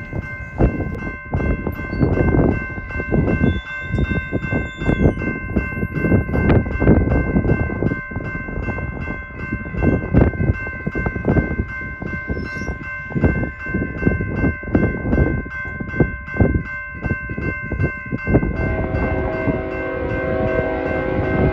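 Grade-crossing warning bell ringing steadily, with gusts of wind buffeting the microphone. About three seconds before the end, the approaching freight locomotive sounds its horn, a chord of several notes.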